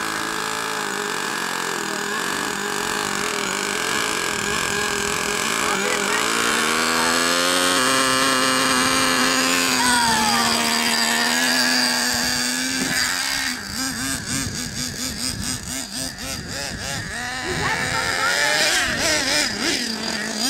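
Traxxas Revo 3.3's small nitro engine running, its pitch rising about seven seconds in and holding steady and high. From about halfway through, the engine note surges and drops again and again as the truck is throttled.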